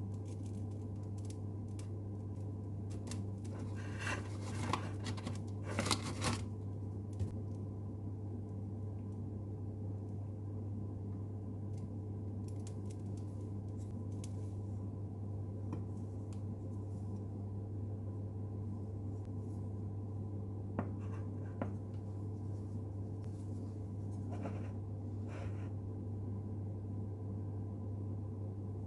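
Kitchen utensils scraping and clicking, in a cluster of scrapes about four to six seconds in and a few more around twenty-five seconds, over a steady low hum.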